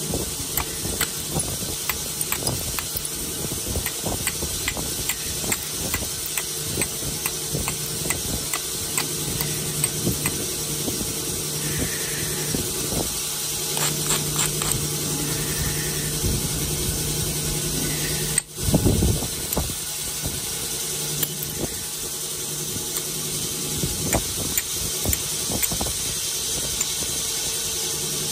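A stone flake being worked by hand in flintknapping: a steady run of small, irregular scratchy clicks and scraping as its edge is abraded or pressure-flaked over a leather pad. A steady low hum runs underneath.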